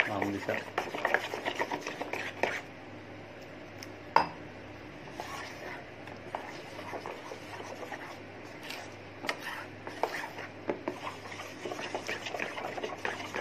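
Spoon beating thick gram-flour batter in a bowl: quick wet slaps and taps of the spoon against the bowl. The beating eases off for several seconds midway, with one sharper clink about four seconds in, then picks up again near the end.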